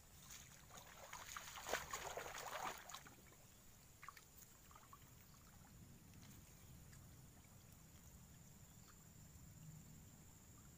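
Footsteps and crackling rustles of tall grass and leaves being pushed through, loudest in the first three seconds. After that, only faint ambient background with a few small rustles.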